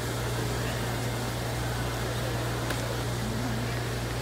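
Steady low hum and background murmur of a large, echoing show hall, with faint distant voices in the crowd.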